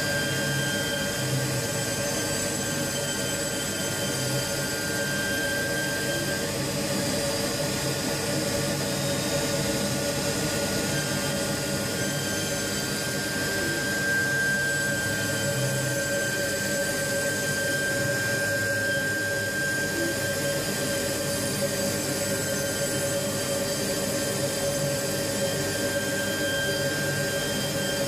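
CNC milling machine's spindle running steadily as it mills an insole out of a blank: a constant whine of several steady tones over an even mechanical rush.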